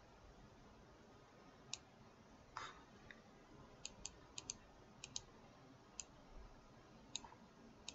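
Computer mouse clicking: about ten short, sharp clicks, several in quick pairs, with one brief rustle about a third of the way in, against near silence.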